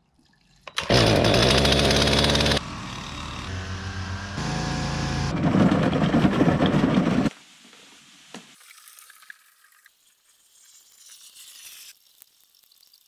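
A small two-stroke engine running in a few short, abruptly cut bursts, loudest at first. A louder rough rolling noise follows, fitting a push broadcast spreader on gravel. Everything cuts off about halfway through, leaving only faint outdoor sound.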